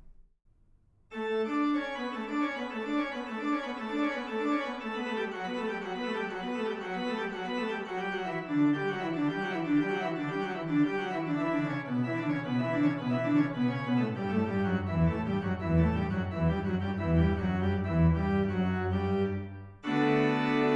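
Organ postlude closing the service: quick running notes over held chords, with the bass moving lower as the piece goes on. It starts after a second of silence, and near the end a short break is followed by a louder, fuller chord.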